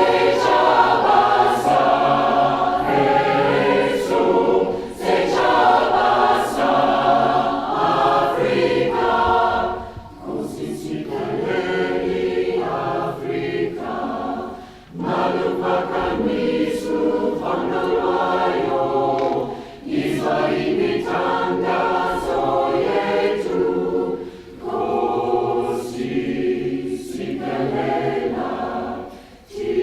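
Community choir singing together, in sung phrases separated by brief pauses.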